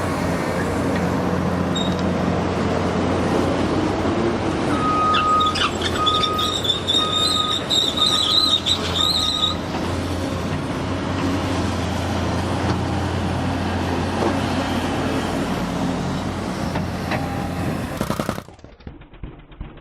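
Diesel earthmoving machine running steadily, with its reverse alarm beeping six or seven times a few seconds in alongside a high metallic squeal; the machine sound cuts off abruptly near the end.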